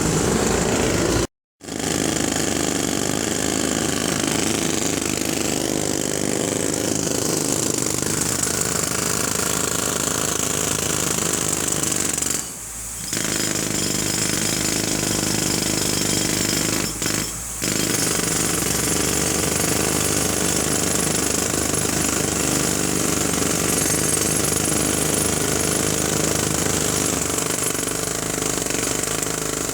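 Jackhammer pounding continuously and loudly. The sound cuts out to silence for a fraction of a second just over a second in, and the hammering dips briefly about 13 and 17 seconds in.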